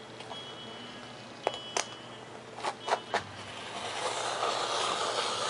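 Hobby knife cutting through Elmer's foam board along a ruler: a few sharp clicks as the tools are set in place, then a long scratchy rasp of the blade drawing through the board, starting about four seconds in.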